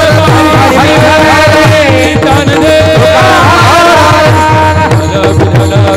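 Devotional kirtan singing: a man sings a drawn-out melodic refrain over fast, steady hand-drum beats and a held drone.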